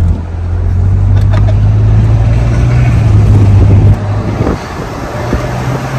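BMW 535xi's twin-turbo inline-six pulling under acceleration, its note rising slowly. The revs drop about four seconds in and then climb again.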